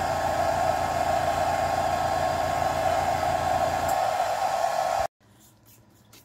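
Handheld hair dryer blowing steadily on a freshly airbrushed fishing lure, drying the wet coat of paint so the next coat can go on. Its low hum drops out about four seconds in, and the airflow cuts off abruptly about a second later.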